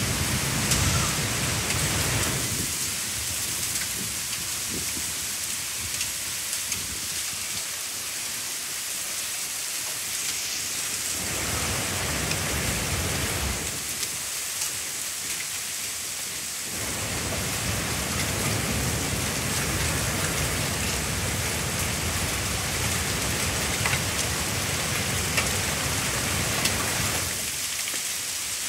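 Heavy thunderstorm downpour: a dense, steady hiss of rain pouring down. A low rumble comes and goes under it in stretches of several seconds.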